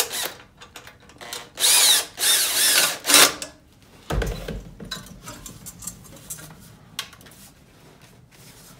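Cordless Makita drill driving the worm screw of a hose clamp tight, in two short runs about two seconds in, its motor pitch wavering. About four seconds in comes a dull thump, then quieter handling of the pipe and guard.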